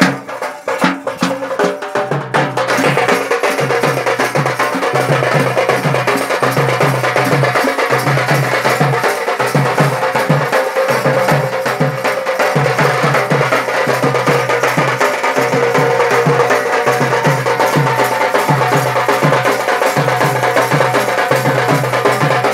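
Loud folk music driven by fast drumming, which settles into a steady, dense beat about two seconds in.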